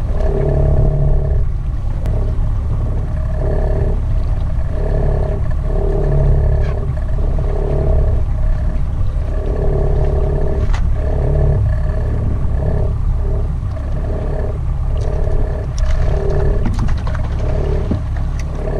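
A Penn International 30 trolling reel cranked steadily while fighting a hooked small tuna, its whine pulsing with each turn of the handle roughly once a second. Under it runs the low rumble of the boat's engine and wind.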